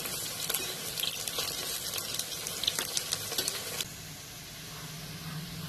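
Slices of patra (besan-coated colocasia leaf rolls) shallow-frying in hot oil, sizzling with spitting crackles. The sizzle cuts off suddenly about four seconds in, leaving a fainter low hum.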